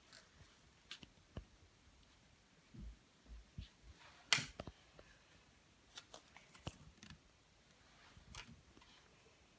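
Handling of a foil trading-card booster pack and its cards: scattered light crinkles and clicks, with one sharper crackle about four seconds in and a couple of soft thumps just before it.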